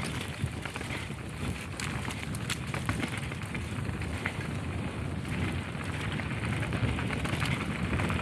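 Mountain bike rolling fast down a dirt forest trail: tyres crackling over dirt and dry twigs with many small clicks and rattles, under heavy wind rumble on the microphone, slowly growing louder.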